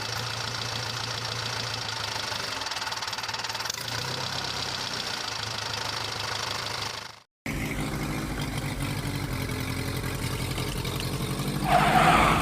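A tractor engine sound idling steadily with a low, even chug. It cuts off abruptly about seven seconds in, resumes with a deeper tone, and grows louder near the end.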